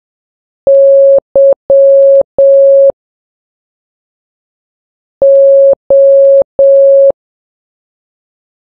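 Morse code practice tones: one steady beep keyed in dashes and dots, dash-dot-dash-dash (the letter Y), then after a pause of about two seconds three dashes (the letter O).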